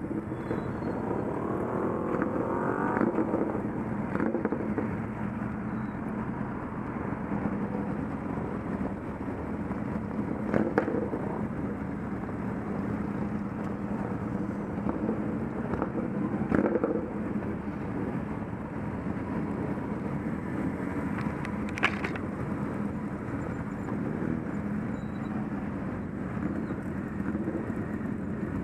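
Motorcycles running at low speed, the nearest engine a steady tone with its note rising and falling in the first few seconds as the throttle changes. A few short knocks sound near the middle and later on.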